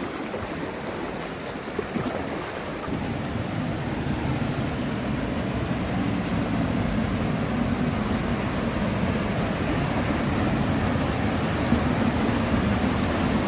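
Water of a rocky hot-spring creek rushing and cascading over boulders and small falls: a steady rush that grows a little louder after about two seconds.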